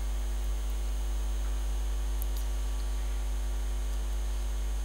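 Steady low electrical hum, mains hum running under the lecture recording, with two faint clicks about two seconds in.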